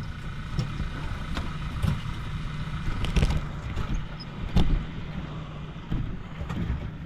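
Fishing boat's motor running low and steady, with a few knocks and bumps against the boat, the loudest about four and a half seconds in.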